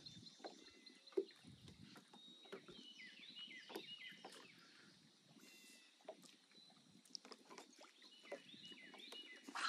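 Near silence: faint open-air room tone with a few faint short chirps and light clicks scattered through it.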